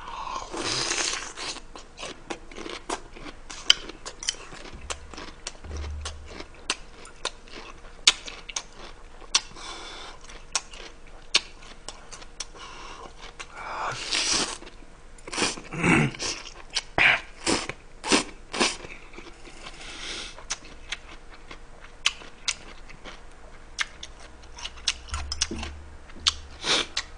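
Close-miked eating: crunching bites and chewing of chonggak (young radish) kimchi, with short, sharp crunches throughout. Noodles are slurped in a burst of louder sounds about halfway through.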